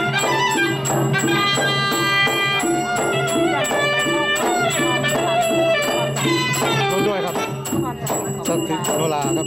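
Southern Thai Nora ensemble music: a wavering, bending melody carried over a quick, even percussion rhythm from drums and small clappers or cymbals.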